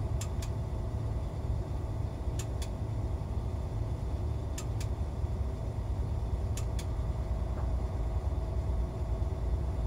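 Mercedes-Benz Travego coach heard from inside the cab while driving: a steady low engine and road rumble, with a pair of faint clicks about every two seconds.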